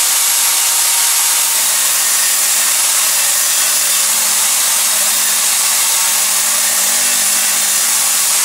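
Table saw running loud and steady, an even whirring hiss, as 19 mm marine plywood panels are cut on it.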